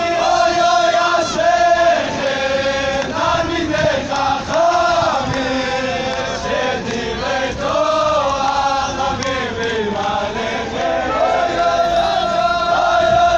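A group of men singing a chant together, loud and without a break.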